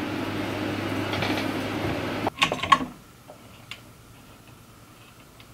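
Steady air-conditioner hum, a few sharp knocks of parts being handled about two seconds in, then the hum stops suddenly about three seconds in, leaving faint room tone with a few light ticks.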